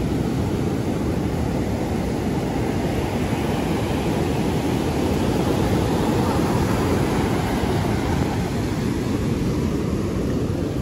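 Ocean surf breaking on a sand beach: a steady low roar of waves that swells a little around the middle and eases slightly near the end.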